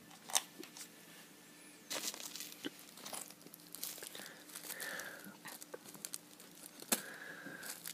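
Faint clicks and crinkling from small parts being handled: screws, nuts and clear acrylic plates clicking together, and a thin plastic parts bag rustling.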